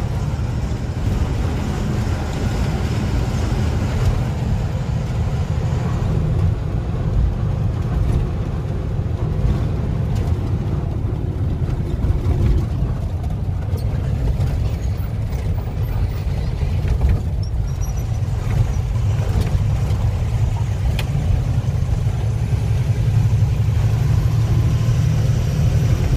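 Truck engine running steadily while the truck drives slowly, heard from inside the cab as a continuous low rumble with road noise.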